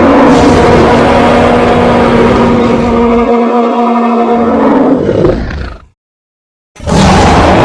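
Cartoon Tyrannosaurus rex roar sound effect: a long, loud roar at a steady pitch that fades out about six seconds in. After a second of silence, another loud sound starts abruptly.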